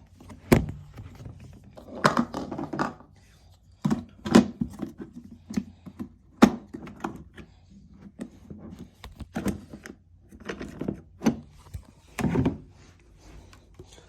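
Plastic clean-water tanks and caps of two Hoover carpet cleaners being handled: a string of separate clunks and knocks with short clattery clusters between quiet gaps.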